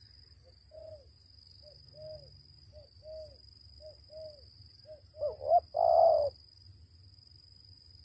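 Spotted dove cooing: a run of soft, short arched coo notes about once a second, then louder coos a little after five seconds in. A steady high insect trill runs underneath.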